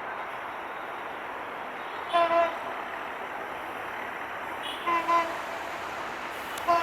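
Diesel locomotive horn of a new EMD GT38AC sounding two quick double toots a few seconds apart, then starting a longer blast near the end, over the steady noise of the passing train.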